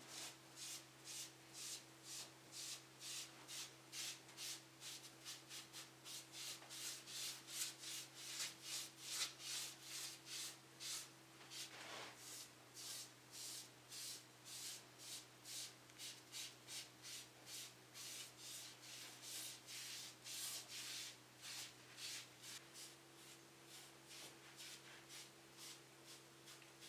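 Foam brush stroking red stain onto a bare tulip poplar board: faint, quick swishes repeated about two to three times a second, over a low steady hum.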